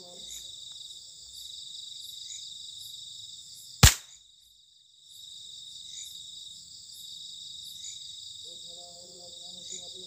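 Crickets and other insects chirring steadily in a night field. About four seconds in there is one sharp, very loud crack, after which the sound drops out for about a second before the chirring returns.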